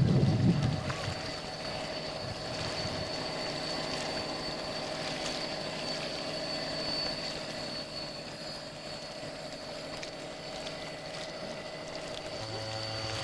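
Radio-controlled model rescue cruiser's motor running steadily with a thin high whine, over the wash of water. A gust of wind hits the microphone at the start, and a deeper hum joins near the end.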